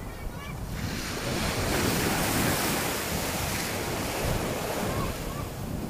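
Small sea waves breaking and washing through shallow water, the rush swelling about a second in and easing off toward the end, with wind rumbling on the microphone.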